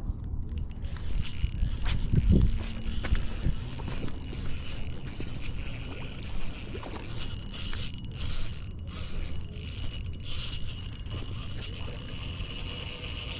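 Shimano Vanford 1000 spinning reel being cranked while a hooked trout is played on light line, with jacket fabric scraping and rubbing over the microphone and a bump about two seconds in.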